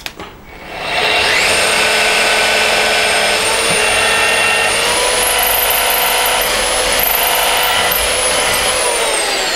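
Old Black & Decker electric drill with a 4.5 mm twist bit boring through softwood: a click, then the motor spins up and runs with a steady whine under load. Its pitch steps up a little about halfway through, the bit is pulled back out of the hole to clear chips from the flutes, and the motor starts to wind down near the end.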